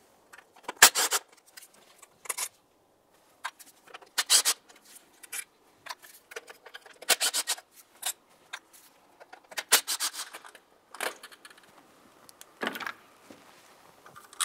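Ratchet clicking in several short bursts while backing out a throttle body's 10 mm mounting bolts, with light metal clinks.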